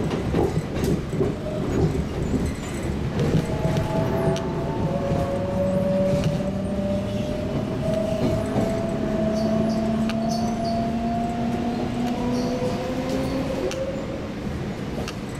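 Seoul Subway Line 4 train heard from inside the car, running and slowing into a station: a steady rumble of wheels on rail with scattered clicks over the joints. From about four seconds in a whine of a couple of tones runs along with it, then fades as the train draws up to the platform.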